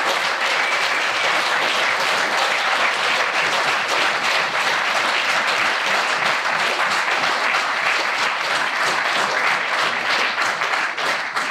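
Audience applauding steadily: a dense round of many hands clapping.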